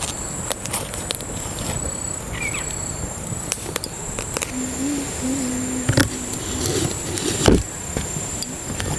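Wood fire crackling and popping in a clay mud stove, with sharp knocks as a string-tied bundle of taro leaves is pushed into the flames to roast. A steady high insect buzz runs over it.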